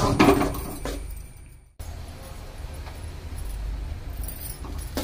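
Perforated metal spoon scraping and clinking against a metal kadai while stirring thick masala and potatoes, for about the first second and a half. It cuts off suddenly, and a low steady hum with a faint hiss follows, with a few soft clicks near the end.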